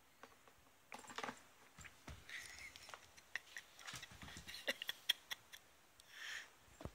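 Faint rustles, light clicks and scrapes of a plastic step stool being tilted, shuffled and set down on a sheet-covered floor, with a cat pawing about under it. A cluster of quick clicks comes in the middle, and a short scraping rustle near the end.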